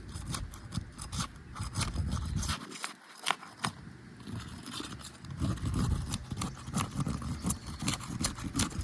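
Roof snake being worked under 3-tab asphalt shingles to break their seal strips: a run of sharp scrapes, clicks and crackles, with a brief let-up about three seconds in.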